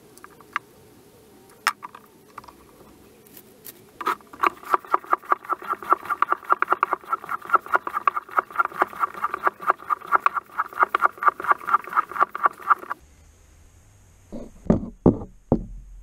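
Topeak JoeBlow floor pump worked in quick, even strokes, about four to five a second, for the final inflation of a tubeless mountain bike tyre. A few light clicks come before the pumping and a few loud low thumps near the end.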